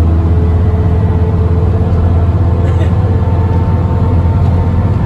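The Cummins ISCe diesel engine of a TransBus Trident double-decker bus, heard from inside the passenger saloon, running steadily at a constant pitch with a loud low drone as the bus drives along.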